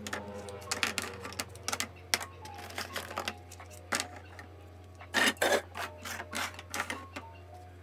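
Plastic Stabilo Boss highlighters clacking against one another and being set down on the desk and into clear acrylic organizers: a run of irregular clicks and knocks, loudest in a quick cluster about five seconds in. Faint background music runs underneath.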